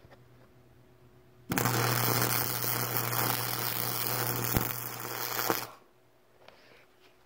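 Arc welder laying a bead on a broken steel power-seat bracket: the arc crackles and hisses over a steady hum for about four seconds, starting suddenly a second and a half in and cutting off sharply.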